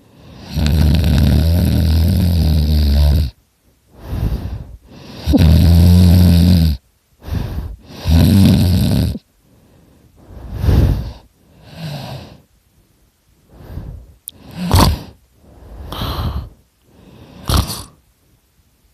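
A person snoring very loudly with the mouth open: three long, loud, low snores in the first nine seconds, then a run of shorter, quieter breaths about every second and a half.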